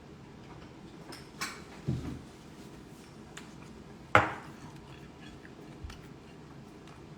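Kitchenware being handled: a few light clicks and knocks, a dull thump about two seconds in, and one sharp clack with a short ring about four seconds in.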